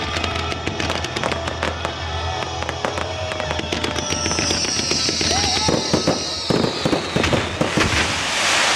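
Fireworks going off in rapid succession with dense crackling and popping. A long whistle falls slowly in pitch from about four seconds in, and a loud hiss builds near the end.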